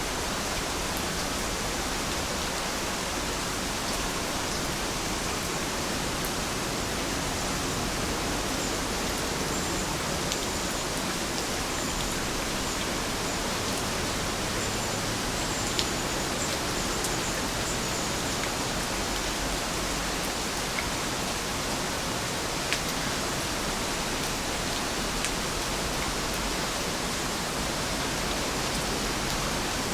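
Heavy rain falling steadily as an even hiss, with a few sharper drops ticking now and then.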